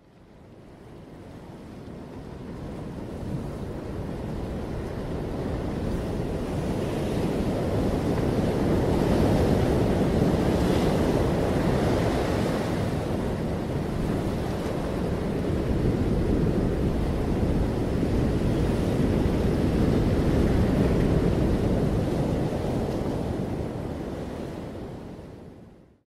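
Ocean surf and wind: a steady rushing wash of waves that fades in over the first few seconds, swells twice, and fades out near the end.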